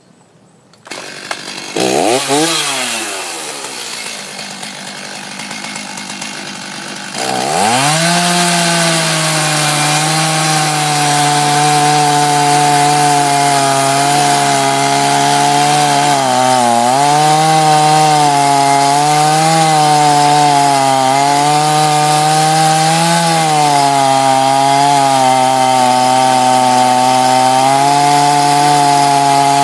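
Stihl Farm Boss chainsaw on a Granberg Alaskan mill starting up about a second in, revving once and idling. At about seven seconds it goes to full throttle and holds there, ripping a slab lengthwise through a walnut log. Its pitch dips slightly now and then as the chain loads up in the cut.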